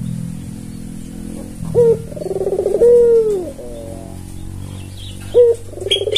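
An albino puter (white Barbary dove) cooing twice. Each coo is a short sharp note, a rolling trill and a long drawn-out note that falls away. The second coo starts about five seconds in. A low steady drone fades during the first second.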